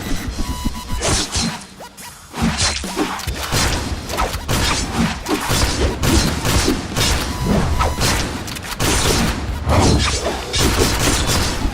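Action-scene sound design: music under a dense run of combat sound effects, with crashes, smashing and shattering hits, thuds and whooshes, and a short lull about two seconds in.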